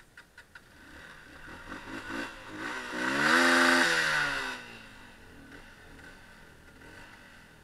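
A few light quick ticks, then a vehicle engine whose note rises and grows loud about three seconds in, holds briefly, and falls away again.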